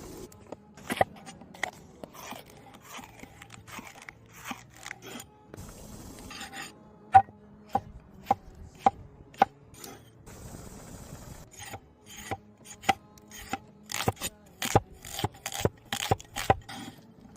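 Knife chopping and scraping on a wooden cutting board: rasping rubs with single sharp chops, a run of chops about half a second apart in the middle, and a quicker flurry of chops near the end.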